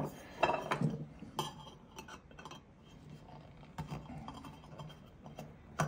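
A steel screwdriver clinking and scraping against a small brass barometer case while a tight screw on the case back is worked loose, with scattered light metallic clicks and knocks.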